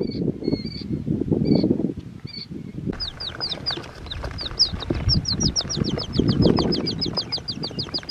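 Rustling and crackling in grass and dry leaves, with quail chicks peeping a couple of times a second. About three seconds in this gives way to a fast run of short, falling high chirps, about five a second, over continued rustling.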